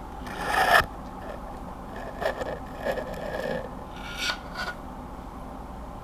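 Keyboard switch with a Cherry Silent stem being cycled and pressed at different angles with a small tool: a run of soft rubbing and scraping sounds, the loudest in the first second, with no clack or click at the ends of travel, as the cushioned silent stem stays pretty silent even under off-axis force.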